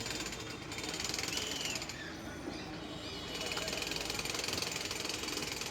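Case 770 EX backhoe loader's diesel engine running under work, with a fast, even mechanical rattle that swells twice.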